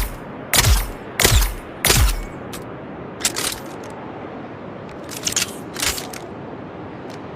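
P-35 Re-educator dart rifle sound effect: three shots in quick succession, each a sharp crack with a low thump that drops in pitch. After them come several lighter, irregular clicks and snaps.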